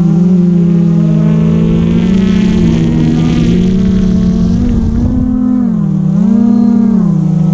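Quadcopter drone's motors and propellers whining in a steady pitch, which then swings up and down several times near the end as the throttle changes while it manoeuvres.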